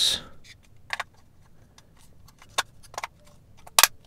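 A handful of sharp, irregular plastic clicks from a car window switch being handled and fitted together, the loudest a quick double click near the end.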